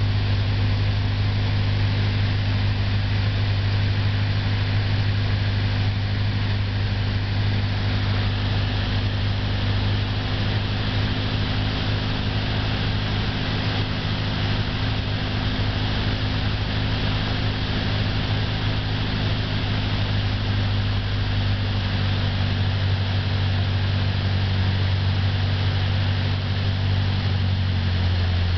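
Light aircraft's engine droning steadily on final approach, heard inside the cockpit with a rush of air noise. Its tone drops slightly about three quarters of the way through.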